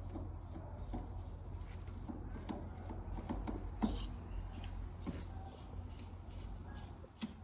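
Scattered faint clicks and light knocks, the clearest about four seconds in, over a steady low hum.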